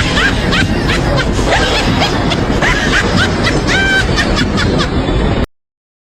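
Snickering laughter with short, rising and falling squeaky calls over a steady noisy background, cut off abruptly to dead silence about five and a half seconds in.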